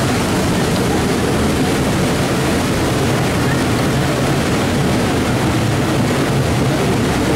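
Steady rumble and clatter of a passenger train rolling along the track, heard from on board.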